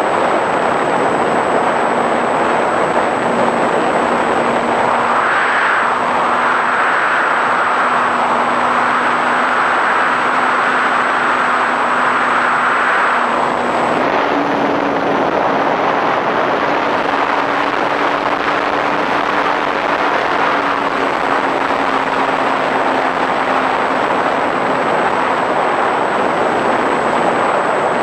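Flyzone Switch RC plane's electric motor and propeller running steadily in flight, heard from on board as a steady hum under loud wind rush over the microphone. The hum steps up a little in pitch about halfway through and eases back somewhat later.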